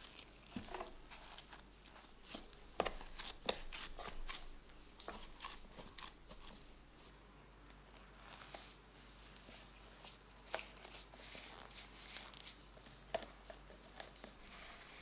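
Gloved hands pressing soft bread dough down into a metal loaf pan, with faint scattered taps and knocks against the pan. From about halfway through, plastic cling film is stretched and smoothed over the pan, crinkling, with a few sharp clicks.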